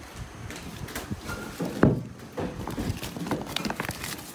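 Groceries being handled in a woven plastic shopping bag: crinkly rustling of the bag and irregular light knocks of packages, with one sharper knock about two seconds in.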